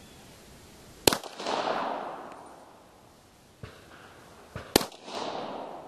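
Two pistol shots from a Steyr-Hahn M1912 firing 9mm Steyr handloads, about three and a half seconds apart, each followed by a rolling echo.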